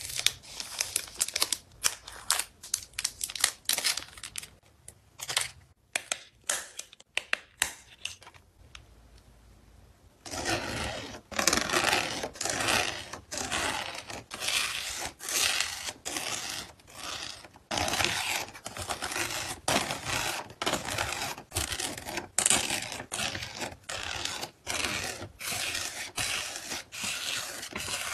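Hand-packing photocards: sharp taps and clicks of cards and packing materials being handled, then after a short lull about ten seconds in, continuous crinkling and rustling of packaging being folded and wrapped.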